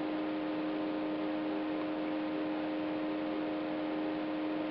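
Steady electrical hum, a few even tones over a constant hiss, with no other sound.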